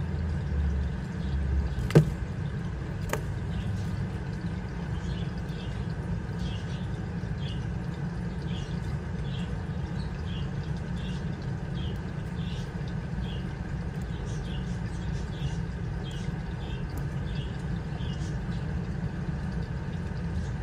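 Steady low hum, with a sharp click about two seconds in and another about a second later. Through the middle a faint, short, high chirp repeats about twice a second.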